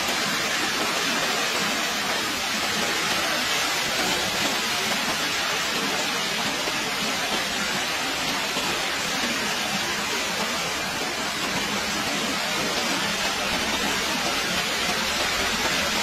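Floodwater rushing past in a fast, churning current: a steady, unbroken rush of water.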